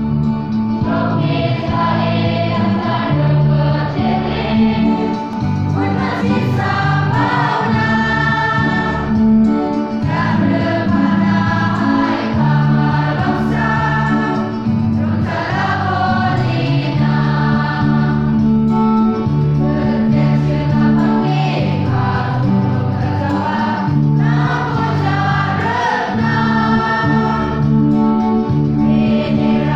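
Church choir and congregation singing a hymn with musical accompaniment.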